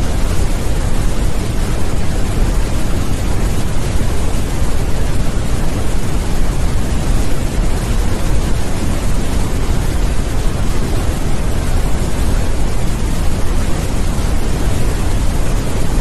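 Steady, loud rushing of a waterfall pouring down a rock face.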